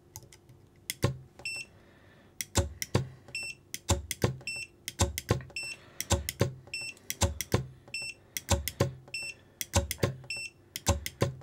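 9imod 71 kg brushless RC servo repeatedly driven against a digital torque meter's arm in a stall-torque test at about 6 volts: sharp clicks and knocks as it slams on and off the load, brief low hum while it strains, and short high electronic beeps between pulls.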